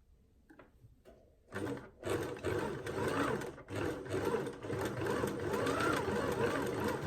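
Waltsons Celestial Cub 4 sewing machine starting up about a second and a half in after a few faint clicks, then running steadily, stitching a narrow zigzag along the side of a buttonhole.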